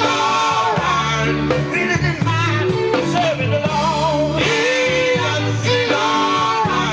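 Gospel vocal group singing with band accompaniment, voices held and sliding over sustained bass notes.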